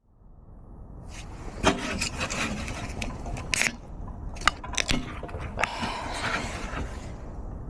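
Handling noises: rubbing and scraping with several sharp clicks and knocks.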